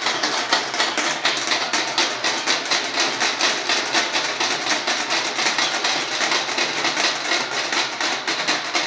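Metal-shelled street drums beaten with sticks in a fast, steady rhythm of sharp strokes, several a second, with dance sticks clacking among them.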